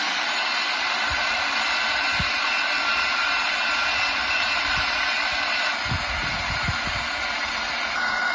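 Twin 80mm electric ducted fans of an RC A-10 jet running at steady power: a loud, even rush of air with a high whine held at a constant pitch. A few low thumps come through under it.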